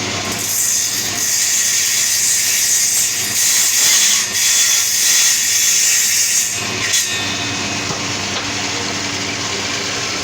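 A loud, steady hiss that starts about half a second in and stops about six and a half seconds in, over a fainter steady hum.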